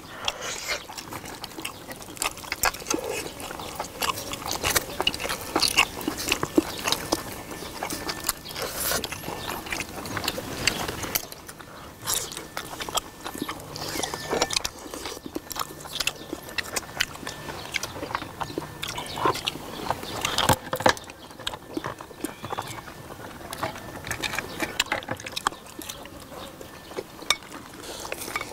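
People eating seafood stew, chewing and biting into shellfish, with frequent short clicks of shells and chopsticks.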